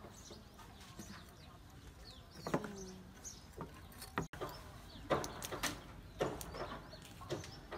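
Cleaver chopping quail on a wooden chopping block: a string of sharp, irregular chops, most of them in the second half. Birds chirp in the background.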